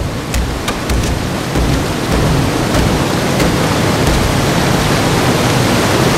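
Loud, steady roar of churning white water, with a few sharp knocks in the first second or so.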